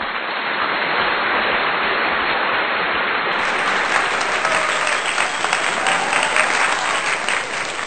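Crowd applauding, a dense steady clapping that turns brighter and crisper about three seconds in.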